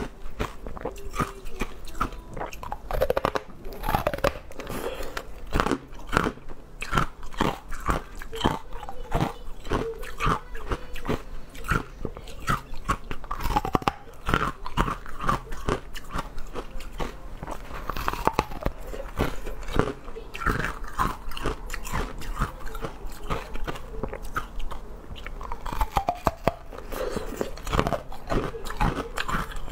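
Close-miked biting and chewing on hard, frosty pieces of coloured ice: a steady run of sharp crunches and cracks.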